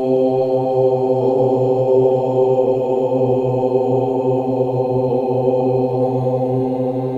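Steady droning chant of meditation background music, holding one low pitch without breaks.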